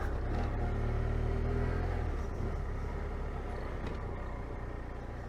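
BMW F800GS parallel-twin motorcycle engine running at a steady note while riding. About two seconds in the steady note gives way to a rougher, gradually quieter rumble as the bike eases off.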